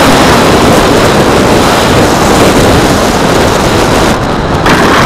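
Loud, dense rushing noise from a model plane's onboard camera microphone: airflow and buffeting over the fuselage, heavy enough to distort. The texture changes about four and a half seconds in.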